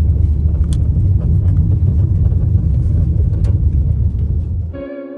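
Low, steady rumble of road and engine noise inside a moving car's cabin, with a couple of faint clicks. Near the end it cuts off suddenly and music begins.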